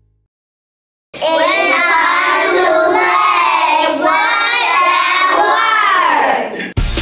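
A group of young children singing together in unison, one continuous phrase of about five seconds that starts after a second of silence. Near the end it breaks off and music with a drum beat comes in.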